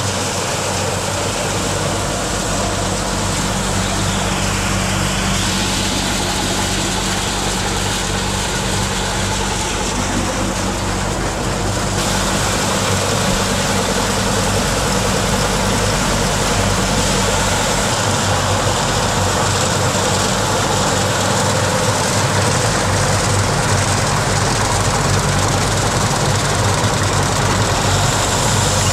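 A machine running steadily with a low, even hum throughout.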